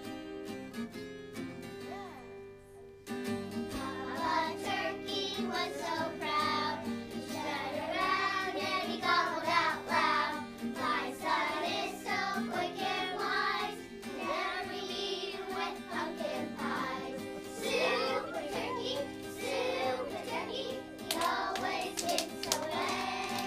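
A group of children singing a song together over an instrumental accompaniment, the singing coming in about three seconds in after a quieter instrumental opening.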